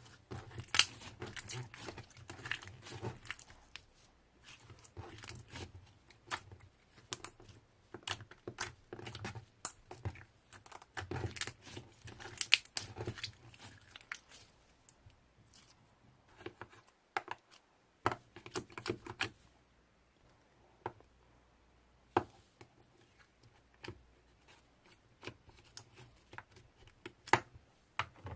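Slime being squished and pressed by hand, making sticky clicks, pops and crackles. The clicks come in dense runs through the first half, then grow sparser near the end.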